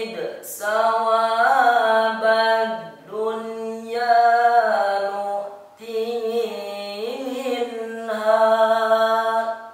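A boy reciting the Quran aloud in the melodic tilawah style, drawing out long held notes with slow ornamental bends in pitch. He breaks off briefly twice for breath and stops just before the end.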